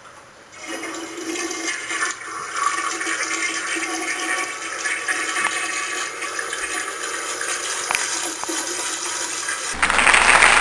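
Water rushing steadily, starting about half a second in. Near the end it cuts abruptly to a louder, even hiss.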